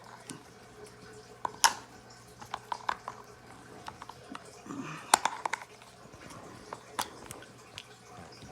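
Scattered light clicks and knocks of plastic parts being handled at the battery compartment of a baby swing's vibration unit, which takes C batteries.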